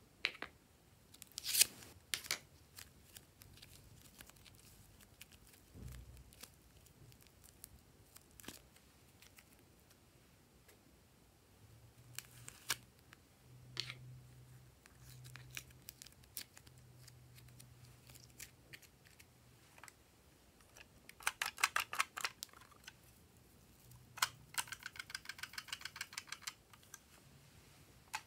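Plastic toy containers handled over trays of slime: scattered sharp clicks and taps, a quick run of crisp clicks about three-quarters of the way through, and a fast, even clicking near the end.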